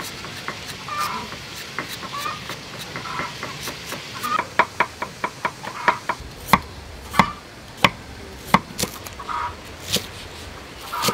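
A kitchen knife chops vegetables on a thick wooden chopping block. A quick run of light chops comes about four seconds in, then slower, louder single chops about every two-thirds of a second. Before that there is light scraping of a julienne peeler shredding a carrot.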